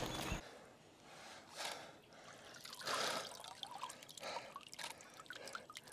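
Faint, irregular splashing and dripping of lake water around a large mirror carp held up in the shallows, with a few soft drips and small splashes.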